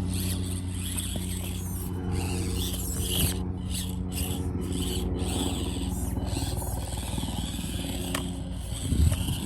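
Helicopter overhead, a steady low drone that holds the same pitch throughout, with a short thump near the end.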